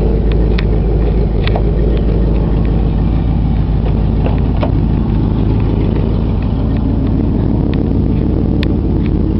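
Rebuilt 429 cubic-inch Cadillac V8 with glass-pack mufflers idling steadily, a deep even drone, with a few light clicks over it.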